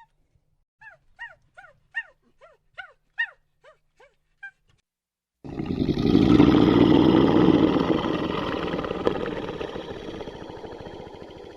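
A dog whimpering: a run of short, high, falling yelps, about three a second. About halfway through they stop and a loud rushing noise starts, fading out slowly.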